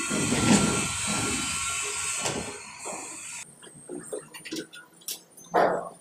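A steady hiss cuts off abruptly a few seconds in. It gives way to light knocks and clicks of PVC pipe fittings being handled and pushed into place, and a dog barks once near the end.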